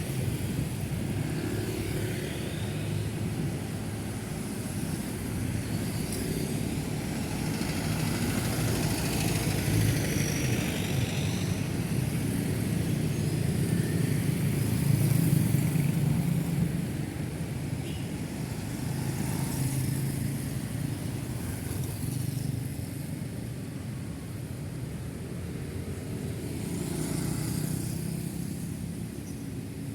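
Busy city road traffic: a steady stream of cars, buses and motorcycles driving past, with engine noise swelling and fading as single vehicles go by, loudest about halfway through.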